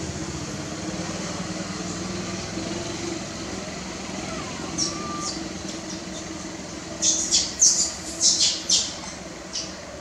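A quick run of short, high-pitched squeaks, about eight within two seconds in the second half, with a few fainter ones before, over a steady low background hum.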